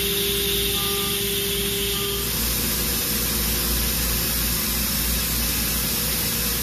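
5-axis CNC machining center running: a steady hiss of machine and coolant noise with a steady hum that stops a little over two seconds in. A faint two-tone beep repeats about once a second over the first two seconds.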